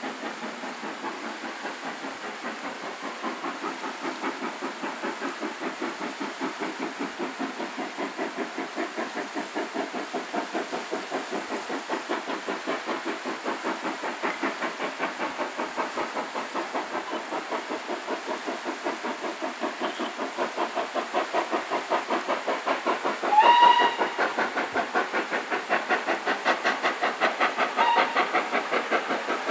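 Southern Railway S15 4-6-0 steam locomotive's exhaust beats, a steady, even chuff that grows louder as the train approaches. About 23 seconds in, the engine gives one short whistle, and a fainter short whistle follows near the end.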